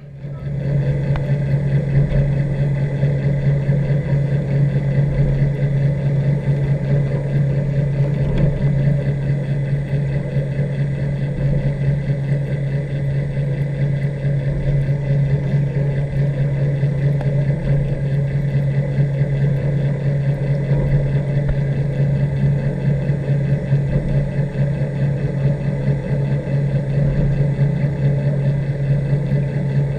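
Steady low mechanical hum of a dog's underwater treadmill running, heard through the water.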